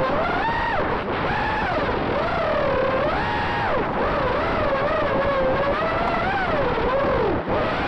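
Racing quadcopter's four Emax RS2205 2600KV brushless motors spinning GemFan 5050 tri-blade props, heard from the onboard camera: a buzzing whine that keeps rising and falling in pitch with the throttle. It dips sharply near the end.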